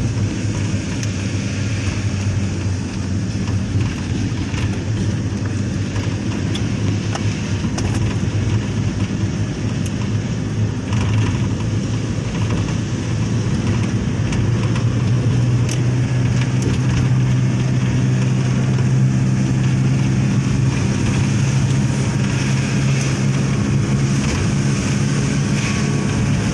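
Loaded truck's engine running steadily as it drives over a dirt road, its note rising a little about halfway through, with a few light knocks.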